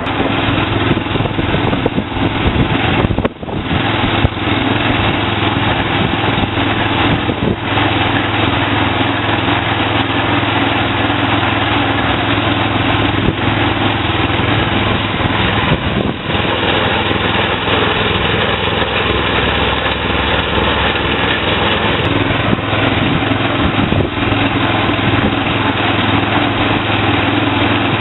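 Kohler 6.5 HP single-cylinder petrol engine of a kerbing machine running steadily while the machine extrudes concrete kerb, with a few brief dips in the sound.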